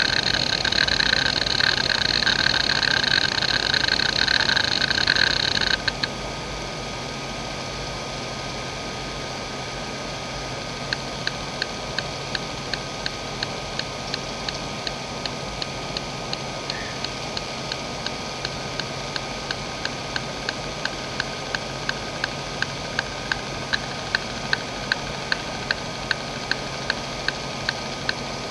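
JVC JDE2042M10-1 40 MB 2.5-inch hard drive's head actuator buzzing rapidly through a seek test, cutting off abruptly about six seconds in. Then a faint steady hiss, and from about eleven seconds in, regular clicks about twice a second that grow slightly louder as the heads step across the disk during a linear read test.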